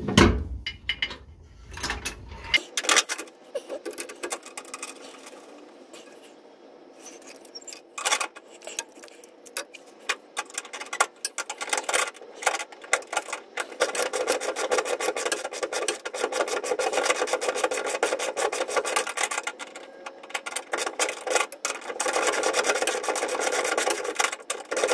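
Hand tools scraping and rubbing on parts, with scattered clicks and knocks, then about halfway through a steady, continuous rasping scrape.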